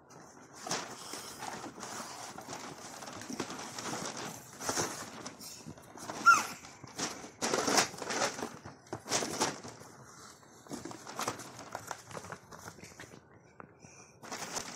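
Handling noise from a boxed plastic toy dollhouse: irregular rustles, taps and knocks as hands move the cardboard box and its plastic packaging. A short high chirp about six seconds in is the loudest moment.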